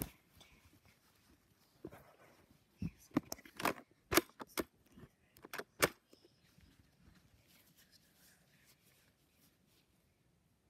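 Handling noise from a camera phone and soft fabric: faint rustling with a run of sharp clicks and knocks from about two to six seconds in, then it goes very quiet.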